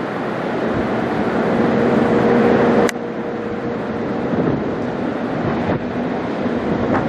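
Boeing 787-9 Dreamliner flying low overhead, its jet engines a steady rush with a faint hum that builds for about three seconds. A click comes about three seconds in, after which the sound drops a little. Wind buffets the microphone throughout.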